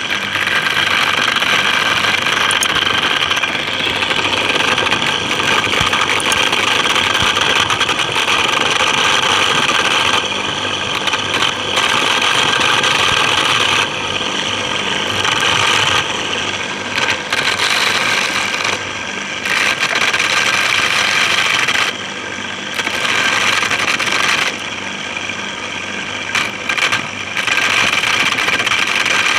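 Homemade electric corn sheller running: a salvaged electric motor spins a shelling head while corn cobs are pressed against it, with a dense rattling clatter of kernels being stripped off. The clatter eases for a moment several times, as one cob is finished and the next is pressed on.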